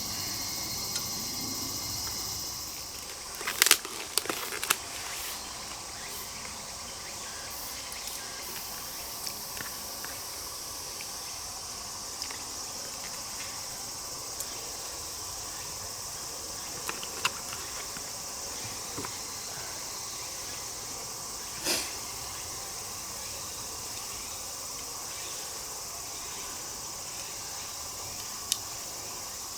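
Steady high chirring of crickets and other insects. A few sharp clicks and knocks are scattered through it, the loudest a cluster about three and a half to five seconds in and another a little past twenty seconds.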